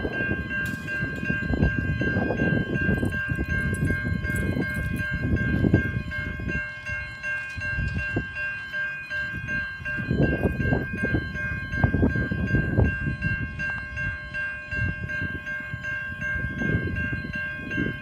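Railway level crossing bell ringing steadily as the boom gates come down, over gusty wind buffeting the microphone.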